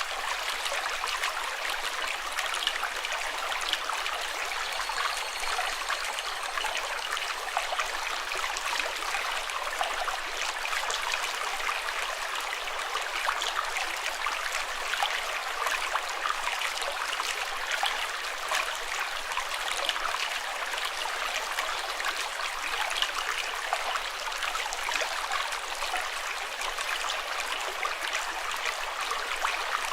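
Water running steadily over rocks in a small stream, a continuous bright splashing and trickling.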